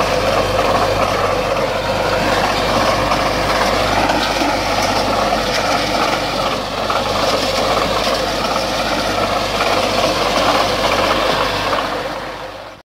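IMT 577 tractor's diesel engine running steadily while it drives a power harrow through the soil. The sound fades briefly and then cuts off abruptly near the end.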